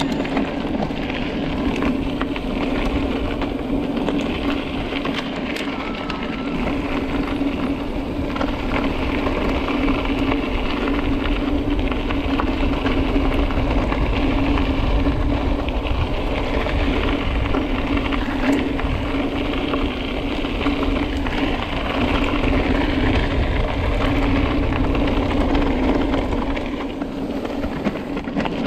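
Mountain bike being ridden along a rough trail: steady rolling noise from the tyres, with a constant hum and rattle throughout.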